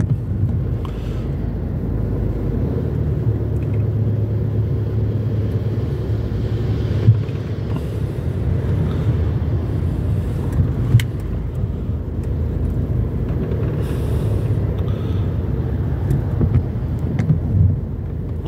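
Steady low rumble of a car's engine and road noise heard from inside the cabin while it waits and then creeps forward in traffic. A few short clicks or knocks come through, about seven and eleven seconds in.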